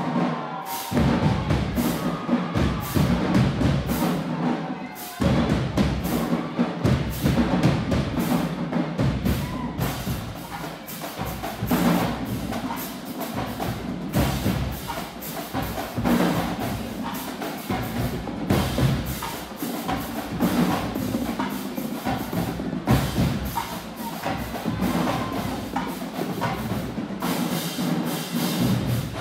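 Marching band playing, with a drumline's rapid, dense drum strokes over low sustained horn tones.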